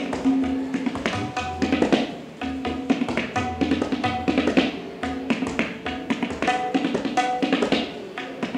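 Tabla being played by a teacher demonstrating a pattern: a fast run of hand strokes with ringing, pitched drum notes.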